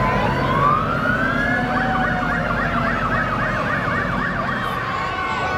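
Fire truck siren. It rises in a wail over the first second or two, then switches to a fast warbling yelp for a couple of seconds, while a second, steadier siren tone sounds underneath.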